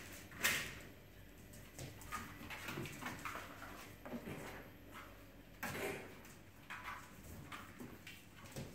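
Five-week-old Labrador puppies moving about and playing: scattered short knocks and scuffles of paws and toys on the floor, the loudest bump about half a second in and another just before six seconds.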